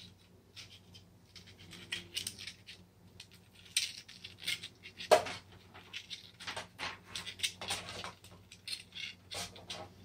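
Handling noise as the probe's thin wire is unwound from a small plastic kitchen thermometer: irregular scratching, rustling and light plastic clicks, with one sharper click about five seconds in.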